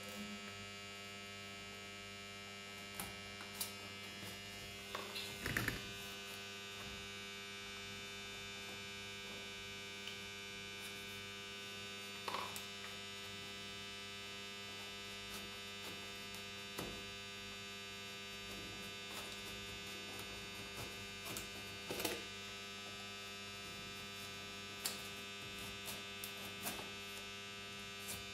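A steady electrical hum made of several level tones, with scattered light clicks and taps as a foam RC model's control surface is pressed and flexed at its hinges; the loudest taps come about five seconds in and again about 22 seconds in.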